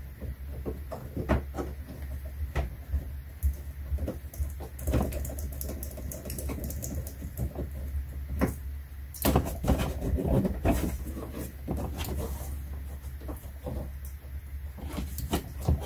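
Irregular clicks, knocks and rattles of hands working at a car's plastic wheel-well liner, over a steady low hum.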